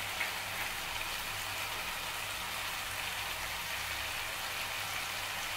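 Tomato sabzi simmering in a frying pan on a gas stove: a steady, even sizzle, with a faint low hum underneath.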